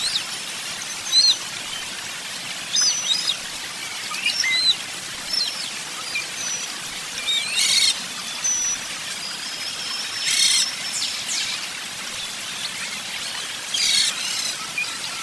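Birds chirping: short, high chirps repeated every second or so, with a few denser bursts of rapid chirping, over a steady background hiss.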